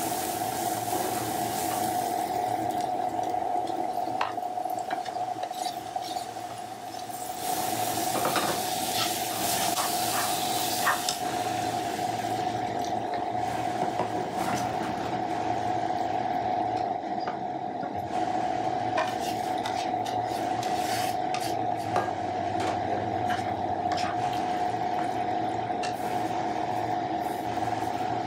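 Minced mutton sizzling in a non-stick pan while a spatula stirs it, with frequent short scrapes and clicks of the spatula against the pan. The sizzle is strongest in the first half, and a steady hum runs underneath throughout.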